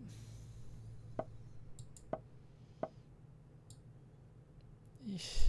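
Sparse clicks and soft knocks, spaced a second or so apart, as moves are made in a fast online chess game: computer mouse clicks and the chess site's piece-move sounds. Near the end comes a short, louder breathy sound from the player.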